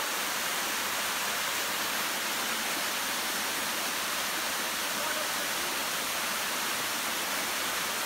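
Waterfall plunging into its pool: a steady, even rush of falling water, mostly hiss with little low rumble.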